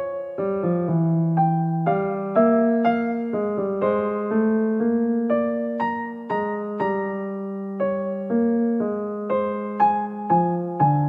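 Slow, gentle electric piano music: notes struck about two a second, each fading away, over held low notes.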